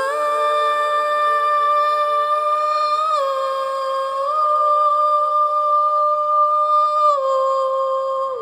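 Music: one long held high note that steps up in pitch at the start, dips about three seconds in, rises again a little later and drops near the end.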